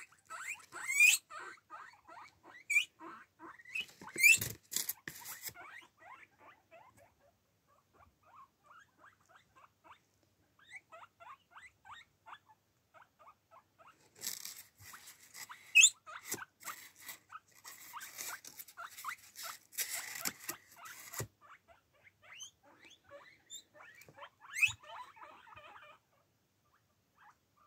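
Young guinea pigs squeaking excitedly: a stream of quick short squeaks and chirps, broken every so often by a loud, sharp rising wheek. It thins out for several seconds in the middle, then grows busy again before fading near the end.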